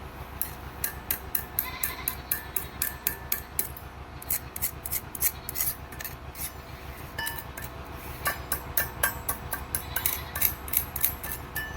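Stick-welding work on steel: a run of sharp, irregular clicks and crackles, several a second, some with a short metallic ring, over a steady low hum.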